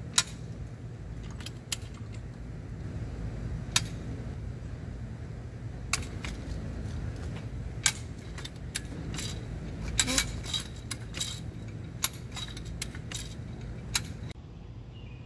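Sharp metal clicks and clanks from a farm jack being worked to pull a copper ground rod out of concrete, with locking pliers clamped on the rod: scattered single clicks at first, coming faster past the middle. A steady low hum runs underneath.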